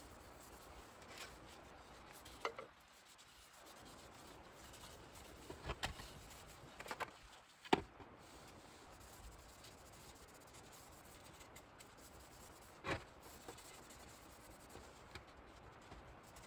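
Faint rubbing on the wooden tabletop of a side table being refinished, broken by a few light knocks.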